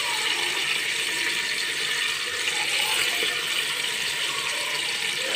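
Yogurt-marinated chicken pieces sizzling steadily as they fry in hot oil in a pot.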